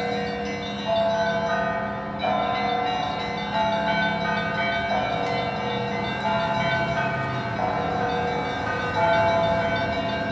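Orthodox church bells pealing, a fresh strike about every second and a third, with different bells taking turns so the pitch shifts from stroke to stroke over a ringing hum.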